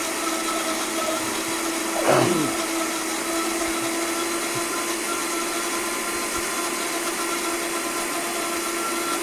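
Countertop blender motor running steadily at one constant pitch, emulsifying egg, cheese and mustard into mayonnaise as oil is drizzled in.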